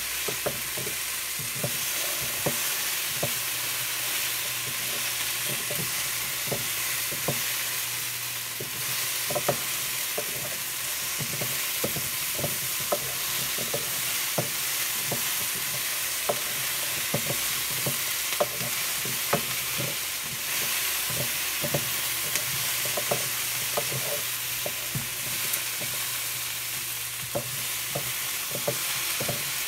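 Chunks of red potato, carrot and onion sizzling in a frying pan while a wooden spoon stirs them, with frequent irregular clacks of the spoon and the vegetables knocking against the pan over a steady hiss.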